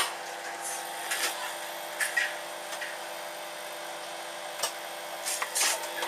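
Microwave oven running with a steady hum, with a loud click right at the start and a few short sharp clicks and crackles scattered through, a cigarette lighter heating inside it.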